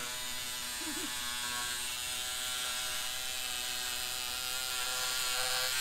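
Cordless electric fabric cutter running steadily while slicing through fibreglass chopped strand mat, a constant motor whine that grows a little louder near the end.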